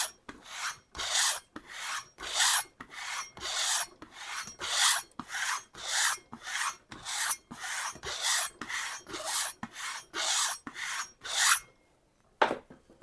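Knife edge stropped on a hanging kangaroo-tail leather strop, about two raspy back-and-forth strokes a second. The roughness comes from the ridges in the kangaroo hide, not from the edge. The strokes stop near the end, followed by one short knock.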